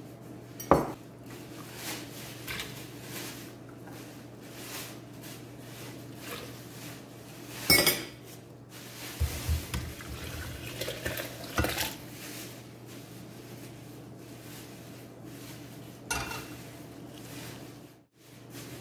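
Kitchenware clattering: a few sharp clinks of a utensil against a pot and a blender jar, and cooked carrots with their liquid poured from a pot into the blender jar, with a run of knocks and clatter about nine to twelve seconds in.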